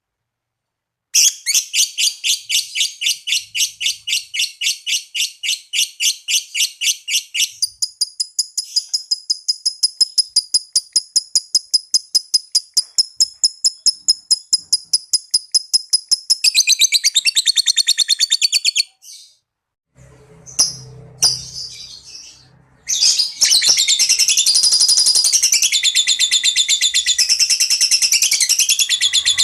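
Lovebird singing its long 'ngekek' trill: a rapid run of sharp, high repeated notes, several a second, that quickens partway through. It breaks off briefly, then resumes as a dense, continuous chatter.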